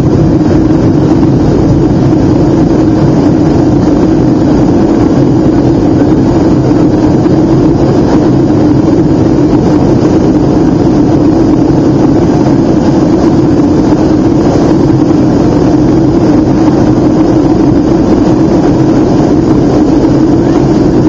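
Steady engine and airflow noise inside a Boeing 757's passenger cabin in flight, with a strong steady hum under it.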